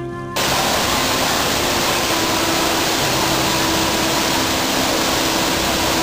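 Steady rush of water pouring over a waterfall, cutting in suddenly about a third of a second in, with soft background music underneath.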